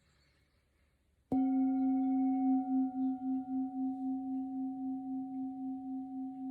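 A Tibetan singing bowl tuned to C is struck once, about a second in. It then rings on with a steady wavering pulse, slowly fading.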